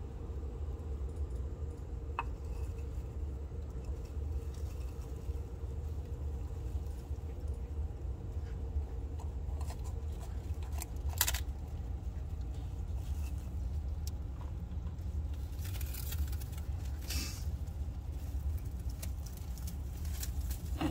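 Blue-tongued skink biting and crunching the shell of a quail egg: scattered sharp cracks and clicks, the loudest about eleven seconds in, over a steady low hum.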